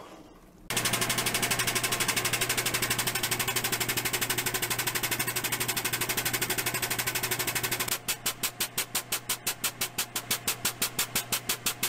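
Air-over-hydraulic floor jack's air-driven pump running in a fast, steady chatter while raising a truck's rear axle. About eight seconds in it changes to slower, separate pulses that die away near the end.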